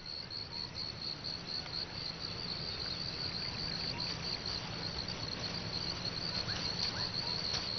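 Insects chirping in a steady, high-pitched pulsing trill.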